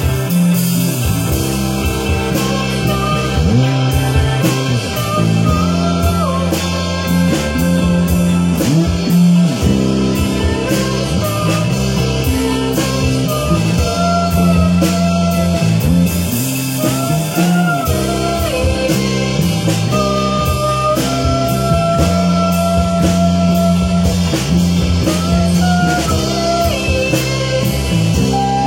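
Rock music with guitar and a drum kit: sustained, bending melody notes over a steady bass and beat.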